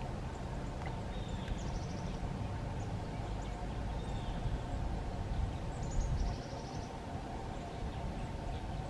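Several short bird calls over a steady low rumble: a couple of quick high trills and a few falling chirps.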